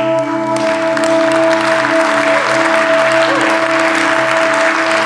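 Audience applauding, beginning about half a second in, over the steady held tones of an ambient music soundtrack, some of which fade out partway through.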